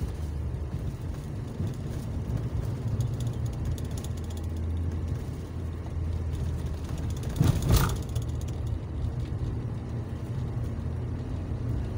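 Motorcycle on the move in city traffic: a steady low engine and road rumble, with a brief loud rush of noise about seven and a half seconds in.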